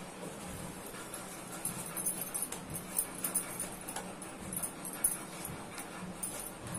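A metal spoon mixing flour and melted butter in a stainless steel bowl, scraping and clinking lightly and irregularly against the bowl from about two seconds in.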